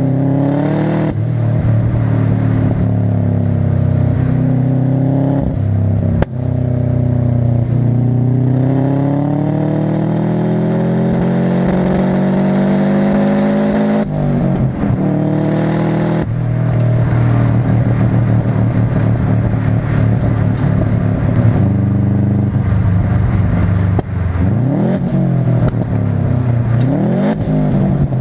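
Subaru Impreza's turbocharged flat-four engine being driven hard: its pitch climbs steadily, then drops at gear changes about 14 and 16 seconds in, with several sharp exhaust pops between the pulls.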